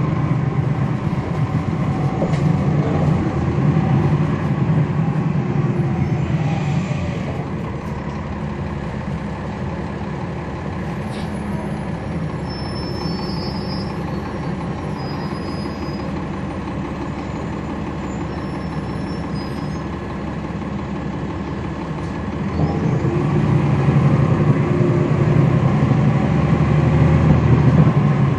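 Cummins ISL9 diesel engine of a NABI 40-SFW transit bus, heard from inside the cabin. It runs under load, eases off about seven seconds in and settles to a lower steady idle, then builds again about three-quarters of the way through as the bus pulls away.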